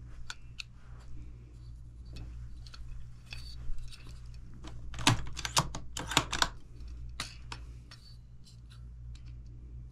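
Handling of a Lyman trigger pull gauge and the rifle: scattered light clicks and taps, with a cluster of sharper clicks about halfway through, as the gauge is reset and set against the trigger.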